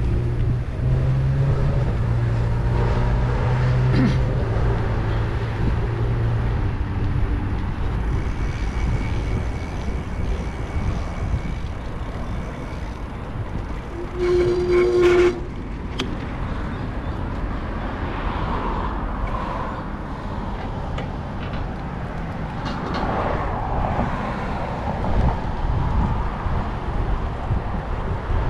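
Wind and road noise rumbling on the microphone of a bicycle-mounted camera during a ride, with motor traffic passing on the adjacent road. There is a low engine hum in the first few seconds, and a brief louder tone about halfway through.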